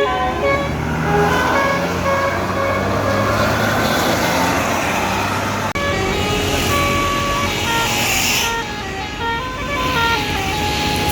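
A bus's Basuri telolet melody horn playing a tune of short stepped notes over the low running of a bus engine and passing traffic. The first half is mostly engine and road noise; the horn tune comes in clearly about six seconds in.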